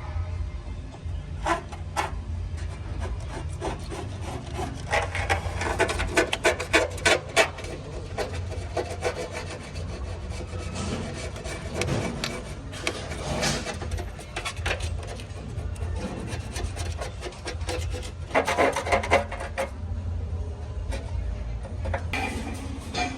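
Repeated rapid scraping or rasping strokes of a hand tool on a workpiece, coming in runs with short pauses, over a steady low rumble.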